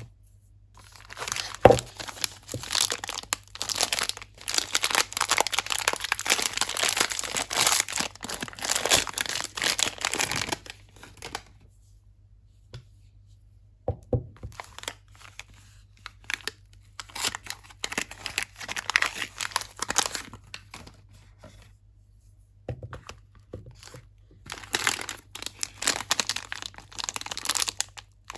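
Soap wrappers being torn open and crinkled by hand, in three spells of dense crackling with short pauses between them. A sharp click about two seconds in is the loudest sound.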